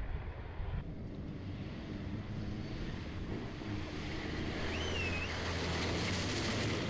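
Heavy race trucks' diesel engines running hard on a dirt course, the engine note and rushing noise building as a truck passes close by, with wind buffeting the microphone.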